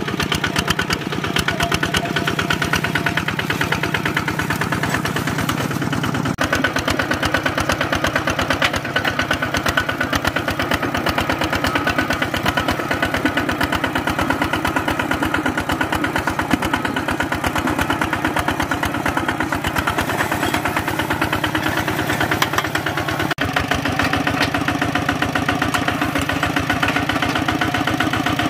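Kubota walk-behind tractor's single-cylinder diesel engine running under load while pulling a plough through dry soil, a loud, steady, rapid firing beat. The tone changes abruptly twice.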